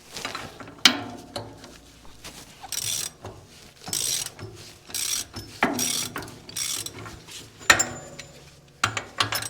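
Ratchet wrench clicking in short bursts as a bolt is worked loose, with a few sharp metal clanks with ringing, about a second in and again around six and eight seconds.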